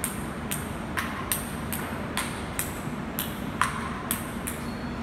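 Sharp clicks with a short high ringing tail, repeating evenly about two to three times a second over a steady low hum.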